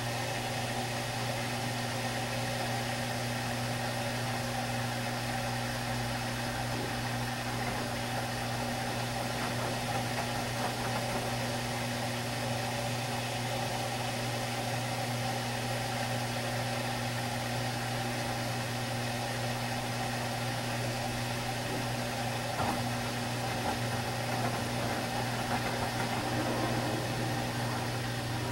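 Samsung WD136 front-loading washer-dryer washing: its direct-drive drum turns the wet load with a steady hum over the even swish of water and tumbling clothes.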